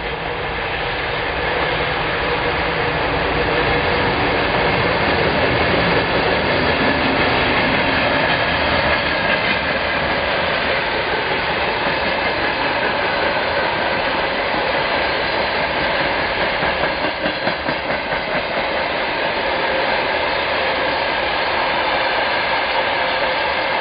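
GE C36-7i diesel locomotive's engine growing louder over the first few seconds as it approaches and passes, then the steady rumble and wheel clatter of a train of freight hopper wagons rolling past.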